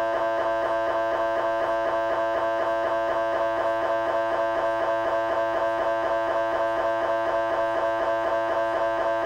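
GE 3 T MRI scanner's gradient coils running a T2 axial fast-recovery fast spin echo (FRFSE) sequence: a steady, loud pitched buzz of several tones, pulsing rapidly and evenly.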